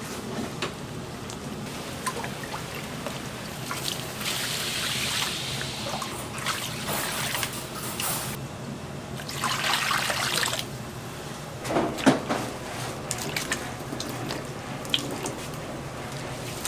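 Liquid running or being poured in a street-food kitchen, in two longer stretches with a steady background hum, and scattered light clinks and knocks of utensils.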